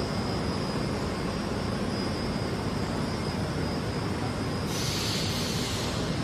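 Steady running noise of a rubber sealing-profile extrusion and vulcanization line: a dense mechanical hum with a thin, steady high whine over it. Near the end a hiss comes in for a second or so.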